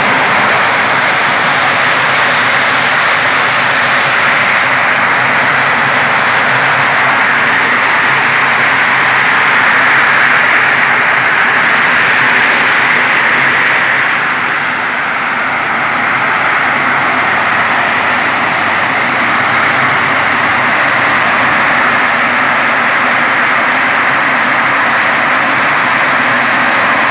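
Walnut hulling machine running, its rotating brushes scrubbing the green husks off walnuts: a loud, steady churning noise with a low motor hum beneath, dipping slightly about halfway through.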